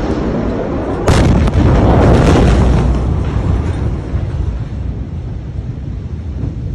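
Blast wave of the Beirut port ammonium nitrate explosion reaching the microphone: a sudden, very loud crack about a second in, then a heavy low rumble for about two seconds that slowly fades.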